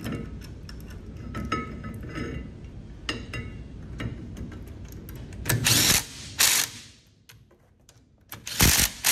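Clinking and clicking of a steel brake caliper and its spacer shims being worked into place on a spindle. Then a Ryobi cordless power driver runs three times in short bursts, driving in the caliper mounting bolts.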